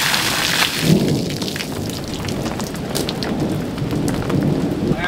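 Steady rain falling on the forest and its surfaces, with scattered drops ticking, and a low rumble of thunder that sets in about a second in and rolls on.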